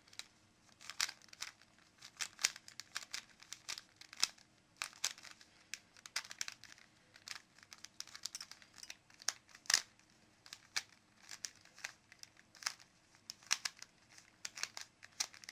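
Rubik's Cube being turned rapidly in the hands, its plastic layers clicking and clacking in quick irregular flurries with brief pauses between.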